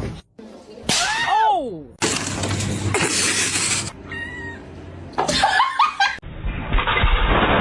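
A cat meowing: one arched meow about a second in, then shorter cat calls around five to six seconds in, between abrupt cuts from clip to clip.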